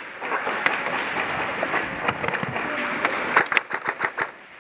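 Airsoft guns firing during a game: scattered sharp snaps of shots and BB hits over a constant noisy din in a large indoor arena, with a quicker, louder run of snaps about three and a half seconds in.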